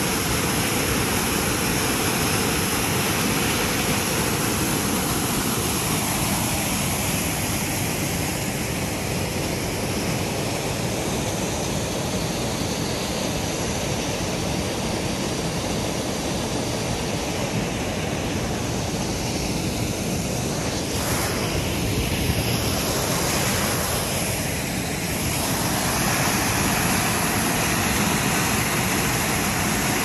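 Small waterfall pouring into a rock pool: a steady rush of falling water, a little quieter in the middle and fuller again near the end.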